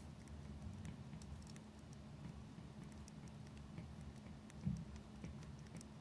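Faint, irregular small clicks and ticks over a low steady hum, with one louder knock about two-thirds of the way through.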